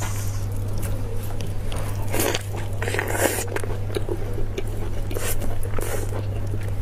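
Close-miked wet, sticky eating sounds: sauce-covered braised beef ribs pulled apart with plastic-gloved hands and chewed, with scattered clicks and smacks. A steady low hum runs underneath.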